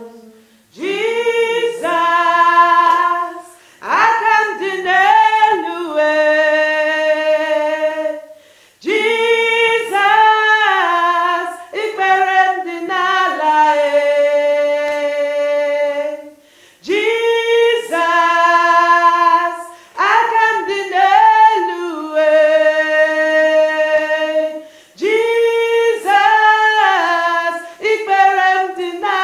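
A small group of mostly female voices singing a worship song a cappella, with no instruments, in phrases of a few seconds with long held notes and short pauses between them.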